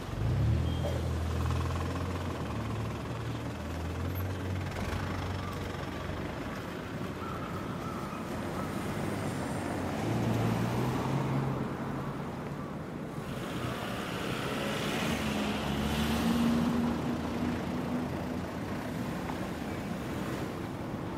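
City street traffic din: a steady wash of cars and heavier vehicles going by. A low engine hum is strong in the first few seconds, and a louder vehicle swells past about three-quarters of the way through.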